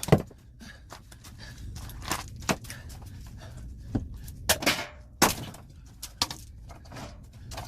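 Axe chopping a very hard log, a series of sharp blows at irregular intervals, the loudest near the start. The wood is so hard that it resists splitting and the axe bounces off it.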